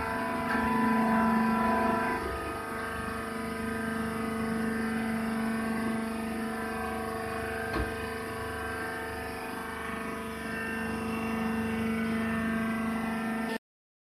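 Hydraulic baler's power unit, the electric motor and pump, running with a steady hum and whine, with a single brief click about eight seconds in. The sound cuts off abruptly just before the end.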